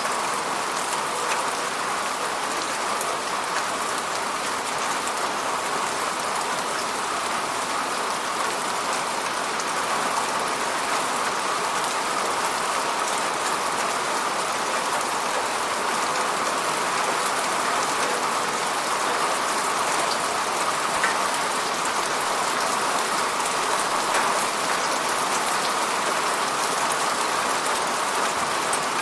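Steady rain falling on a surface: an even hiss dotted with faint drop ticks.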